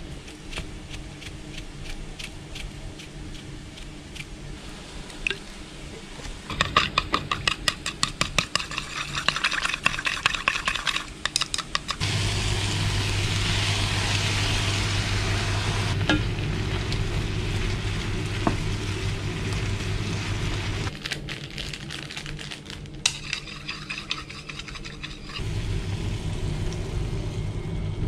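Vegetables stir-frying in a frying pan: a few seconds of rapid clicking and scraping, then from about twelve seconds in a steady sizzle as liquid is poured in from a bowl, with a low hum underneath that drops away for a few seconds and comes back.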